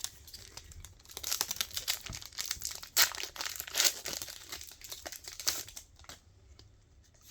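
Foil Pokémon booster pack wrapper crinkling and tearing as it is opened by hand, a dense run of crackles that dies down near the end.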